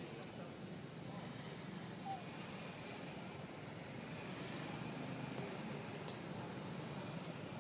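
Outdoor ambience: a steady low background hum with birds calling, including a quick series of up-and-down chirps about five seconds in, and short patches of high hiss.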